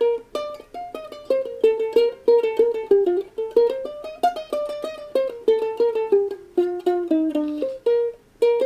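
Ukulele picked one note at a time: a steady run of plucked single notes, about four a second, wandering up and down a pentatonic scale shape.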